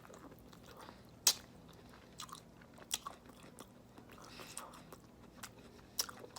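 Close-miked mouth sounds of someone chewing a mouthful of a seafood boil in sauce, with a big piece of ginger among it. Sharp wet clicks and smacks come every second or two, the loudest about a second in.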